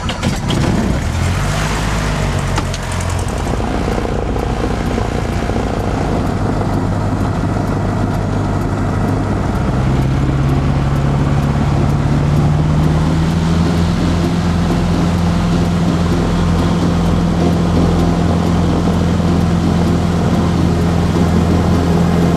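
Cessna 150's four-cylinder Continental O-200 engine and propeller running, heard from inside the cockpit just after start-up. About ten seconds in the engine note rises and then holds steady as power is added.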